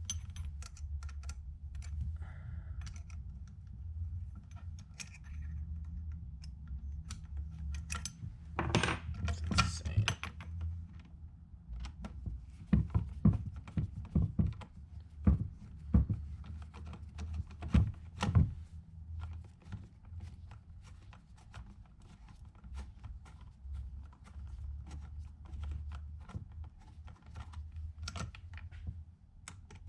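Small metal clicks and taps of an Allen wrench working a door knob's set screw and hardware, with bursts of louder knocks about nine seconds in and again from about twelve to eighteen seconds in, over a low steady hum.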